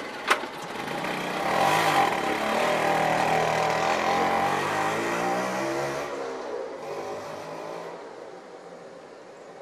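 A sharp click, then a three-wheeler auto-rickshaw's small engine revving as it pulls away, its pitch rising and falling, fading out after about six seconds.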